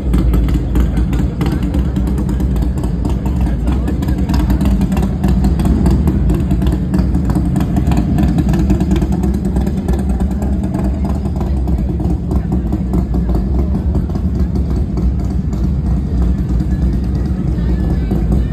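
Motorcycle engine running steadily at a low, even pitch, loud throughout, with voices in the background.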